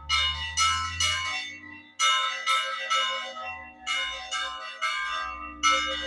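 Church bells rung by hand, struck in quick clusters of three or four strokes about every two seconds, each stroke ringing on with a bright metallic tone. The ringing announces the start of a festival.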